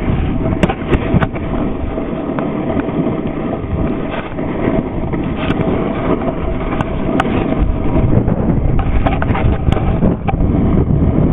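Wind buffeting the microphone of a hand-held camera carried by a snowboarder riding downhill: a loud, steady rumble, growing a little louder about two-thirds of the way in, with a few sharp clicks of the camera being handled.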